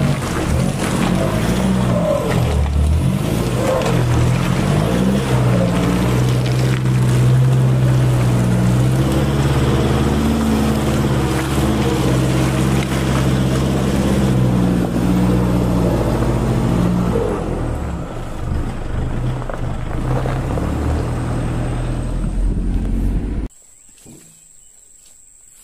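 Pickup truck engine running under load as the truck crawls through deep dirt ruts, its pitch wavering and shifting. Near the end it cuts off abruptly to a much quieter background with a steady high insect buzz.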